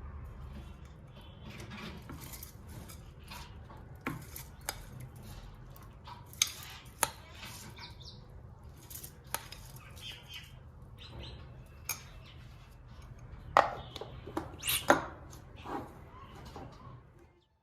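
Kitchen dishes and utensils clinking and clattering in a string of scattered sharp knocks, the loudest a few seconds before the end, over a low steady hum.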